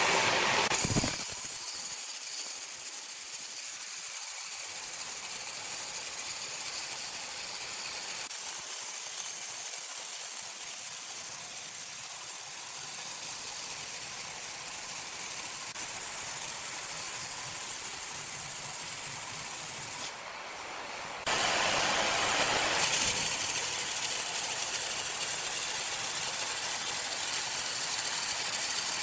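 Sawmill machinery running with a steady hissing noise. The sound changes abruptly about a second in, drops out briefly around twenty seconds in, and shifts again a couple of seconds later, as at cuts between machines.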